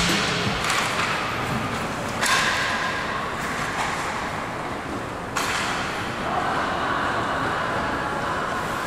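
Ice hockey play: a sharp clack at the faceoff, then the hiss of skate blades scraping and carving the ice, setting in suddenly about two and five seconds in, over rink ambience.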